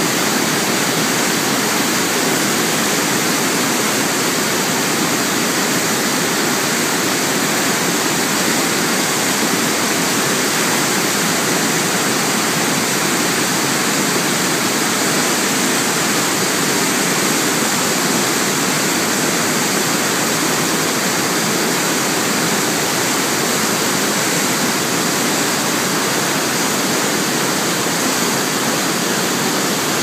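Fast, swollen river rushing through whitewater rapids below a dam: a loud, steady rush of churning water.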